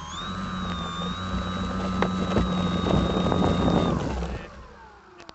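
RC biplane's motor and propeller, heard from the plane's onboard camera, holding a steady high whine at high throttle with rushing air. About four seconds in it winds down in pitch and fades away.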